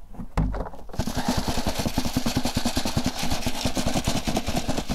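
Crushed charcoal tipped from a plastic bucket onto a half-inch wire sieve with a thud, then the sieve shaken hard on the bucket rim, the charcoal lumps rattling and scraping over the mesh in a fast, even rhythm of about ten strokes a second.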